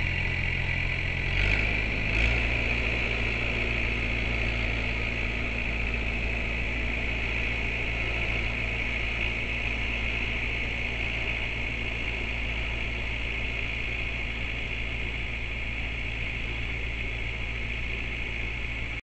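Flatbed truck's engine idling steadily. About two seconds in its note shifts, with two short louder sounds, then it settles back into an even idle.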